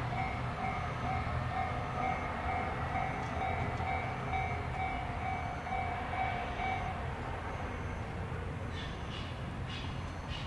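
Japanese level-crossing warning signal ringing its rapid repeated electronic ding, which stops about seven seconds in as the crossing opens. Underneath runs the low, steady sound of a Mizushima Rinkai Railway diesel railcar moving off.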